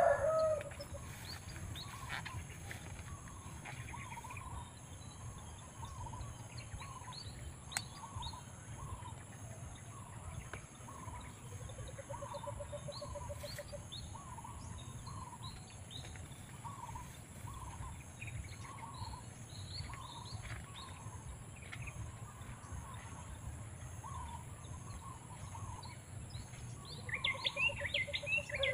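Birds calling outdoors: a short call repeated about once a second, a brief trill twice, and a burst of higher, quicker chirps near the end, over a steady low background rumble.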